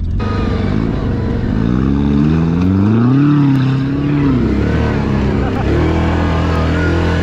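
A small off-road vehicle's engine running under way, its revs climbing about a second and a half in, holding briefly, then dropping back about four seconds in.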